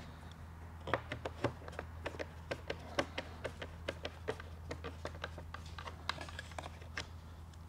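Phillips screwdriver backing screws out of the plastic fog-light bracket on a Lexus ES350 front bumper, with hands handling the parts: a scatter of small, irregular clicks and taps. A steady low hum runs underneath.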